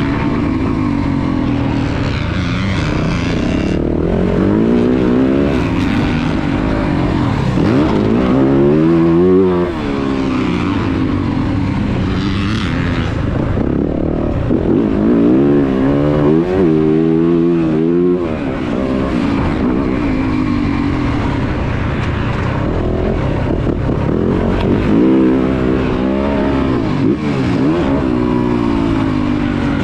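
2023 Yamaha YZ450F's 450 cc single-cylinder four-stroke engine being ridden on board, its note rising and falling over and over as the throttle is opened and shut, with no break in the engine sound.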